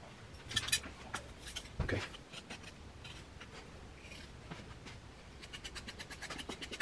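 Hand tool scraping and clicking against the clay forge body while a hole is opened up, with a quick run of small ticks near the end.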